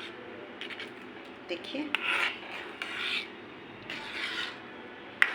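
A spoon scraping and rubbing against the bottom of a pan of thick kheer as it is stirred, in about three short strokes a second or so apart, with a sharp click near the end.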